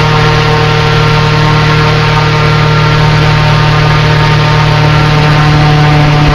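Airboat's engine and air propeller running at speed, a loud steady drone whose pitch rises slightly near the end.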